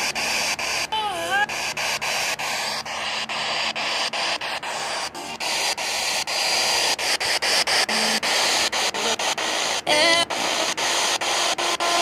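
Radio receiver static on a weak signal: a steady hiss broken by frequent crackles, with short warbling fragments of a garbled voice about a second in and again near ten seconds.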